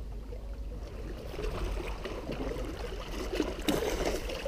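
A hooked fish splashing and thrashing at the surface of the water beside shoreline rocks as it is brought in, with water sloshing. The splashing is irregular and grows busier after about a second and a half, with one sharper splash near the end.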